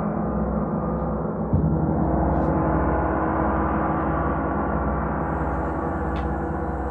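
Large gongs, Broder Oetken's 32- and 40-inch Triangel gongs, ringing in a dense, sustained wash of overlapping tones. A fresh strike about a second and a half in swells the sound.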